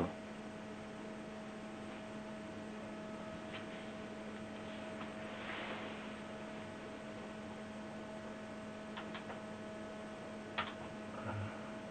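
Steady electrical hum, with a few faint clicks in the last few seconds.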